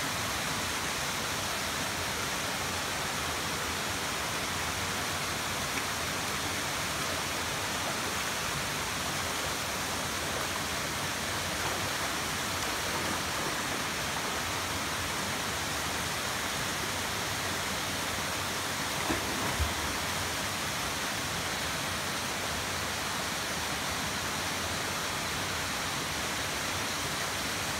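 Waterfall cascading over rocks into a pool, giving a steady, even rush of falling water.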